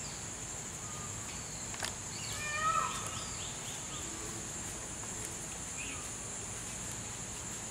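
Steady, high-pitched chirring of an insect chorus, with a short burst of chirping calls rising above it about two and a half seconds in.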